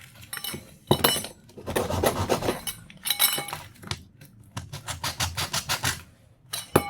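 Small scrap metal fittings clinking and clattering against each other as they are handled and set down, a series of sharp knocks with a quick run of them in the second half.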